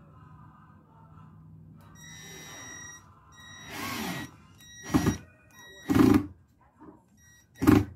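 Cordless drill driving a small screw through a metal coat hook into a wooden board. The motor runs low and steady at first, then in a few short, loud bursts in the second half.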